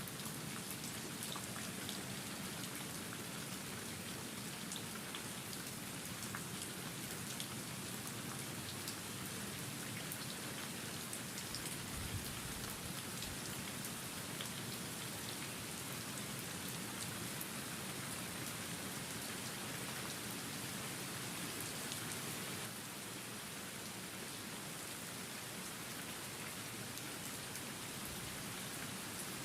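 Steady rain falling, with many separate drops heard as small ticks through it. The level steps down slightly about 23 seconds in.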